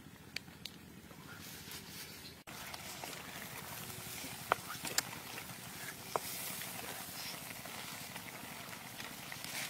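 Frogs cooking in a wok over a wood fire: steady bubbling and sizzling that starts abruptly about two and a half seconds in, with three sharp clicks of the spatula against the wok.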